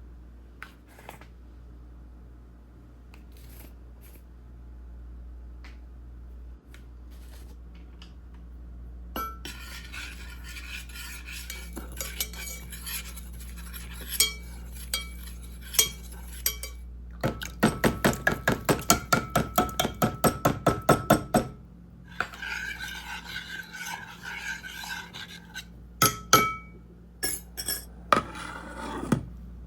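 Utensils scraping and clinking against dishes. In the middle comes a quick, even run of about twenty sharp taps over some four seconds. The first part is quiet apart from a few soft clicks.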